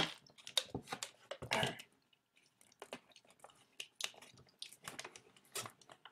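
Drinking water from a plastic water bottle: wet mouth and swallowing sounds, with short crackling clicks from the thin plastic and a louder stretch about one and a half seconds in.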